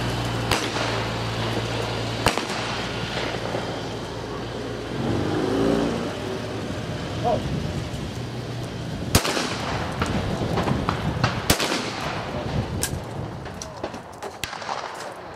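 Shotgun shots on a sporting clays range: about six sharp reports spread through, the two loudest about two seconds apart in the middle. A low steady hum runs under the first couple of seconds, and brief voices come about five seconds in.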